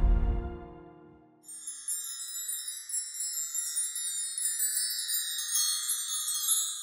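The soundtrack music fades out in the first second. From about a second and a half in, a sparkling chime sound effect, a logo sting of many quick, high tinkling notes, plays steadily until near the end.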